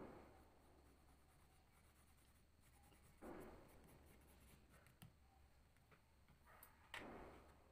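Faint scratching of a dark blue pastel crayon drawn across drawing paper. It comes in three short runs of strokes: at the start, about three seconds in, and near the end.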